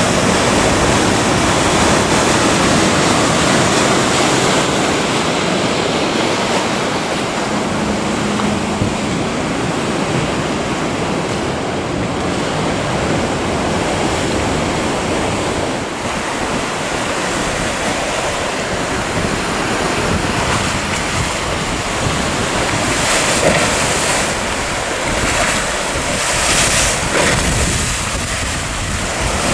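Rough sea surf breaking and churning in a steady rush, with wind buffeting the microphone. The rushing swells louder a few times near the end.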